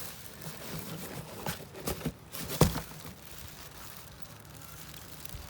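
Crinkling and rustling of packaging with light handling clicks, and one sharp knock about two and a half seconds in.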